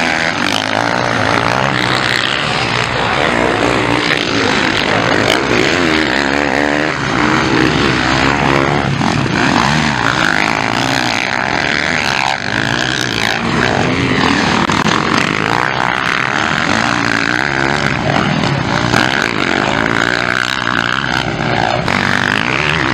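Motocross bike engines revving hard, their pitch rising and falling over and over as the riders accelerate and back off around the track.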